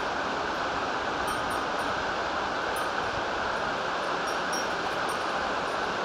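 Steady rushing of a mountain river's water, an even roar with no change, with short high chirps here and there above it.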